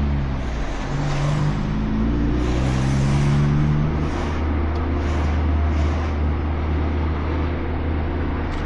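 2017 Subaru Impreza's flat-four engine and muffler-deleted exhaust heard from inside the cabin while driving with the front windows open. The engine note rises and falls over the first few seconds, then settles into a steady low hum over road and wind noise.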